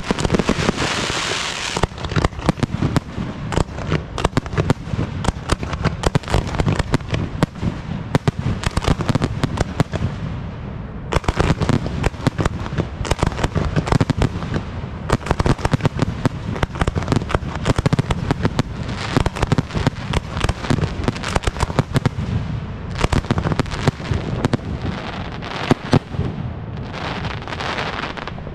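Professional fireworks display firing a dense, continuous barrage of launches, aerial shell bursts and crackle. It briefly thins about ten seconds in, then picks up again.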